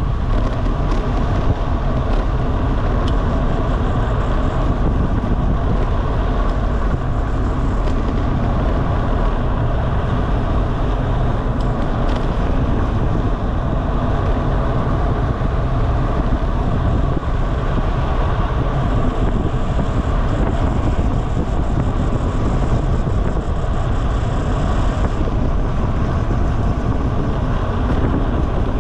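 Loud, steady wind rush over the microphone of a camera riding on a bicycle descending at speed, with the bike's road noise underneath.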